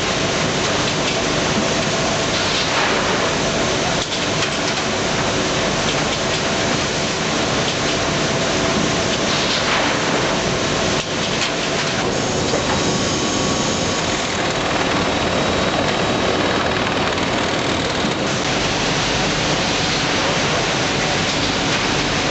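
Automatic open-mouth bagging machine running: a steady, dense mechanical noise with faint hum tones. A thin higher whine joins for several seconds about halfway through.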